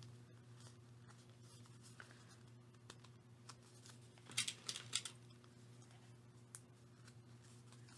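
Quiet paper handling: metal paper clips slid onto folded paper signatures, giving a few faint clicks and rustles, most of them about four to five seconds in, over a steady low hum.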